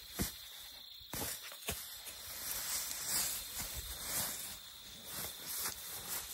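African elephant calf trampling through dry grass as she chases a soccer ball: rustling and crunching stalks, with a few sharp knocks. A thin steady high whine runs underneath.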